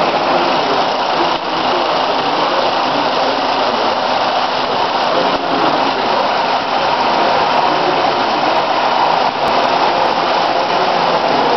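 Loud, steady din of bottling-line machinery: conveyors carrying plastic trigger-spray bottles through a spiral feed screw, with no clear rhythm.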